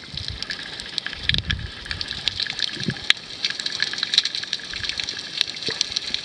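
Underwater sound picked up by a camera moving over a rocky seabed: a constant crackle of many small, irregular clicks, with a few low rumbles of water rushing past, about a second and a half in and again near three seconds.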